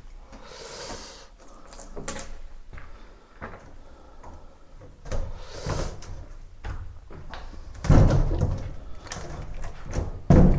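Manual demolition of a masonry bathroom wall: irregular knocks and heavy thuds with short noisy scrapes between them. The heaviest thuds come about eight seconds in and again near the end.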